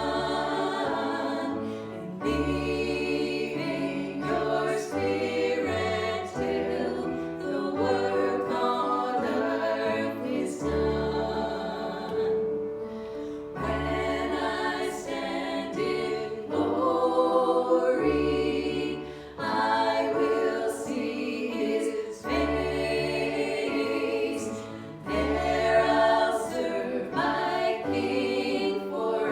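A worship song sung by a group of voices, with instrumental backing that includes a bass line of held notes changing every second or two.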